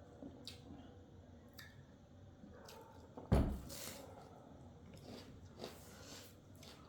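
Quiet chewing and wet mouth sounds of someone eating, with small clicks scattered through and one louder dull knock about a third of the way in.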